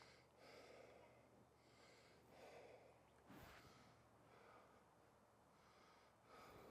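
Near silence, with faint soft breathy puffs about once a second and a faint click a little after halfway.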